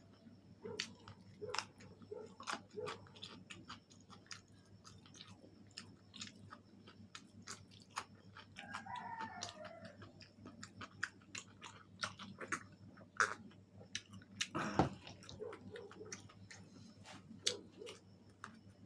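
Close-miked chewing and biting of fried chicken wings, with irregular wet clicks and crunches. A short pitched sound, like a brief hum, comes near the middle, and one louder crunch or knock comes about three-quarters of the way through.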